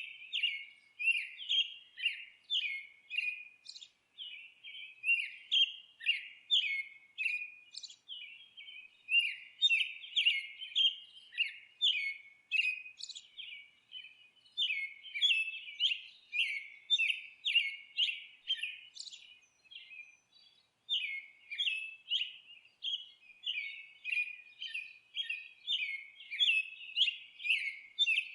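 Songbirds twittering: a rapid, continuous run of short, high chirps several times a second, broken by a few brief pauses.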